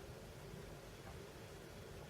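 Faint steady hiss with a low hum: room tone, with no distinct working sounds.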